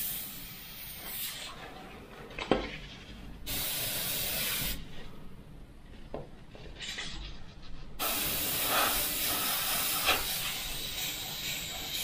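Mr Hobby airbrush spraying solvent paint: a hiss of air and paint that starts and stops as the trigger is worked, with longer bursts in the middle and over the last few seconds. A single sharp tap about two and a half seconds in.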